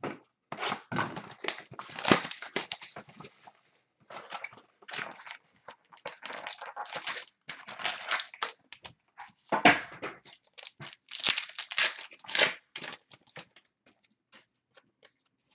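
Wrapper of a 2016-17 Panini Totally Certified basketball card pack crinkling and tearing as it is handled and ripped open, in an irregular string of crackly rustles with short pauses.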